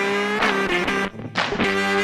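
Music: an electric guitar riff of held notes.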